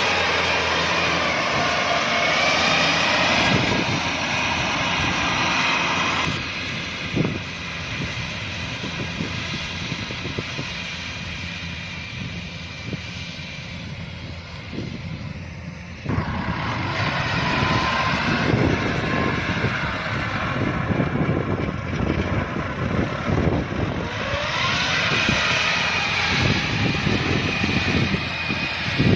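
Kubota DC-105X combine harvester running as it cuts and threshes rice: a steady engine and machinery noise. It is louder at first, fades somewhat from about six seconds in, and comes up loud again about sixteen seconds in.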